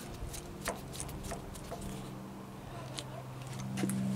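A few light metallic clicks and ticks from a screwdriver working a small screw on a handlebar switch clamp. A steady low hum runs underneath and swells slightly near the end.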